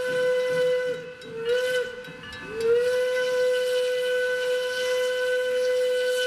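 Steam locomotive whistle sounding the grade-crossing signal: a long blast that ends about a second in, a short toot, then another long blast from just under three seconds in. The whistle keeps one steady chime pitch.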